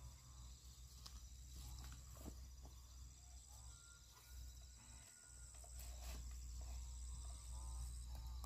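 Steady high-pitched insect chirring, with several short animal calls and a few light knocks.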